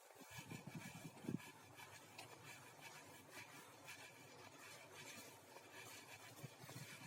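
Near silence: a few faint low bumps or rustles in the first second and a half, then a steady faint hiss.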